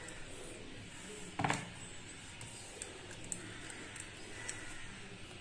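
Faint handling of an insulated copper wire against a plastic switch board. A short louder rustle comes about one and a half seconds in, then a few light clicks.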